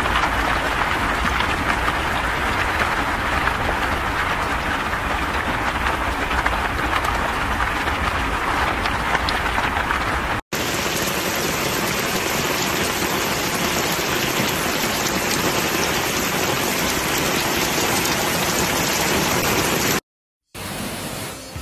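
Heavy rain pouring down steadily onto flooded streets, an even hiss with no letup. About ten seconds in it cuts to a second, brighter and hissier recording of the downpour, which drops out briefly near the end.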